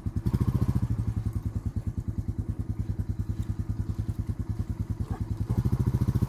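Small single-cylinder ATV engine running at idle with a fast, even putter, swelling louder for a moment shortly before the end.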